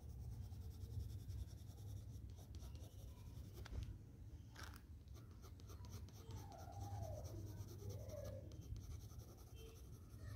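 Doms colour pencil shading lightly on drawing paper: a faint, soft scratching of many short strokes, over a low steady hum.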